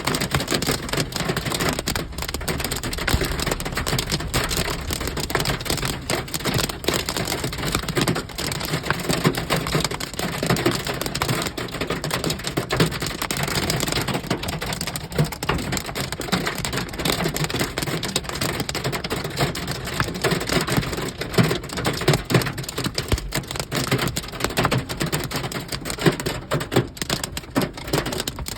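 Heavy rain mixed with hail striking hard surfaces: a dense, steady patter with many sharp taps throughout.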